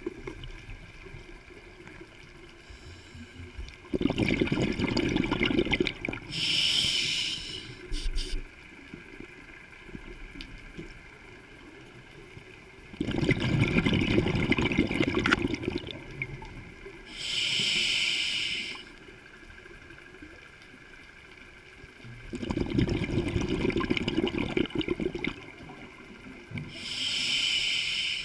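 Scuba diver breathing through a regulator underwater: three slow breaths, roughly nine seconds apart. Each is a gurgling rush of exhaled bubbles followed by a short hiss of inhalation.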